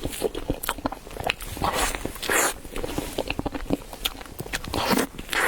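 Someone biting into and chewing chilled bread, with many short sharp mouth clicks and a few longer soft crunching bursts.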